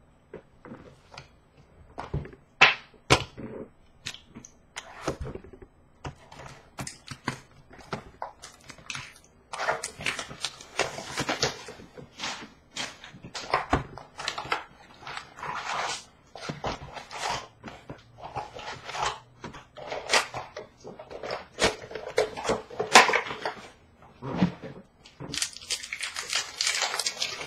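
Trading cards being handled on a counter: a long irregular run of sharp taps and clicks as cards are flicked through and set down, with stretches of papery rustling.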